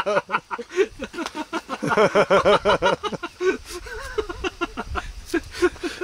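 Hearty laughter: a rapid string of short voiced pulses, loud in two bouts, easing to softer chuckling in the second half.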